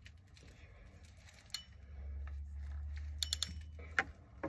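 Small clicks and taps from a fishing reel being handled while line is put on it, with a quick cluster of clicks a little past the middle, over a low rumble.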